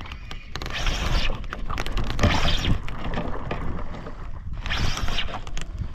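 Wind buffeting the camera microphone, with a steady low rumble that surges three times.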